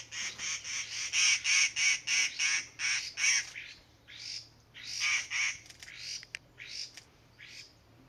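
Harsh, rasping bird calls repeated fast, about four a second, then thinning after about three and a half seconds to a few scattered notes.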